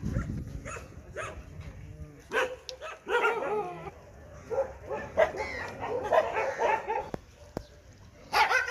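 Street dogs giving short pitched calls in several bursts, their pitch wavering.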